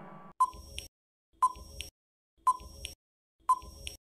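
Countdown timer sound effect ticking about once a second, four times: each tick is sharp, with a short ring, and is followed by a fainter second click.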